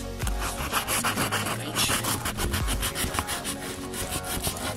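Cardboard parcel box being handled and rubbed right against the microphone: a fast run of scraping, rasping strokes.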